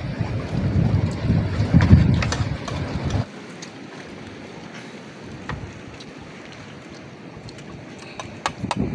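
Wind buffeting the microphone in an uneven low rumble, which cuts off sharply about three seconds in. After that there is a quieter hiss with a few light clicks of cutlery on plates, two of them near the end.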